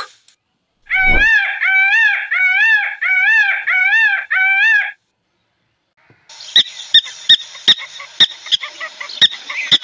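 A peacock calling: a quick run of about seven loud, wailing calls, each rising and falling in pitch. After a short silence come sharp clicking chirps, about two a second.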